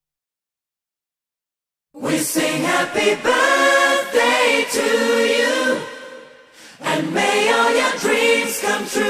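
Silence for about two seconds, then a choir starts singing a cappella, with a short break a little after the middle before the voices come back in.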